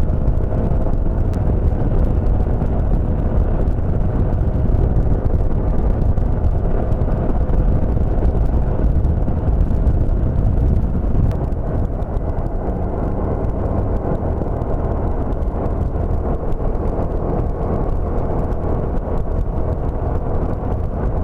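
Wind rushing over the camera microphone on a moving motor scooter, with the scooter's engine running steadily underneath. The level eases a little about halfway through.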